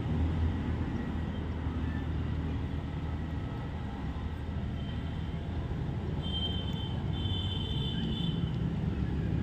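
Steady low background rumble with a hum, joined about halfway through by faint, thin high-pitched tones.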